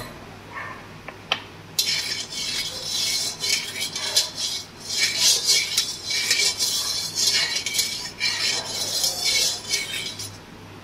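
A spatula scraping and stirring around an aluminium kadai of hot mustard oil with salt in it, from about two seconds in until shortly before the end, with a few light clicks before that.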